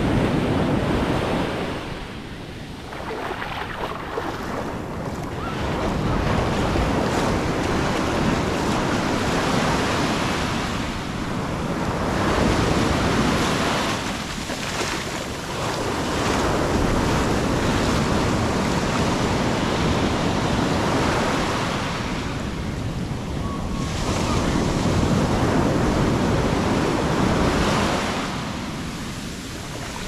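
Atlantic surf breaking and washing up the sand at the water's edge, the foamy wash rising and falling in swells every few seconds. Wind buffets the microphone with a low rumble.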